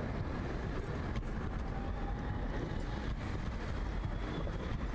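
Cityway articulated low-floor tram running past close by amid street traffic: a steady low rumble of motors and wheels, with a faint thin whine near the middle.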